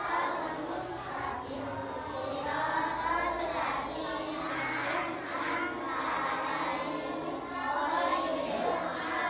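A group of young children reciting prayer verses aloud together in a sing-song chant, their voices overlapping unevenly.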